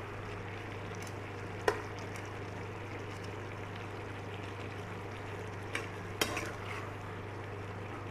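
Vegetable curry simmering in a pan: a steady bubbling hiss over a low hum, with a few sharp clicks as it is stirred, about two seconds in and twice around six seconds.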